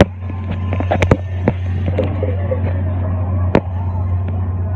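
Sharp knocks and bumps from a phone being jostled and handled while riding a fairground ride, over a steady low hum.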